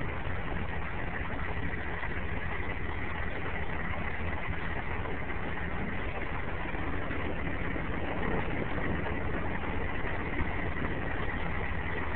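M818 5-ton military truck's six-cylinder Cummins diesel running steadily as the truck pulls slowly up a dirt hill.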